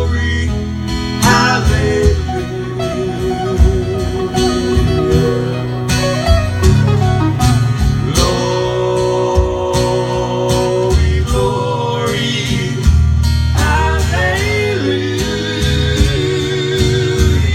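Live country-style music: two acoustic guitars strumming chords under male vocals holding long notes that waver in pitch.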